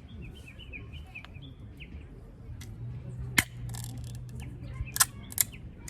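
A small bird chirping, a quick run of short repeated chirps in the first second and a half. Later, three sharp clicks or knocks, the loudest sounds, over a low steady hum.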